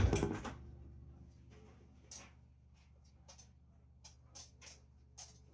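Kitchen handling noises: a loud clatter at the start, then scattered light clicks and knocks over a steady low hum.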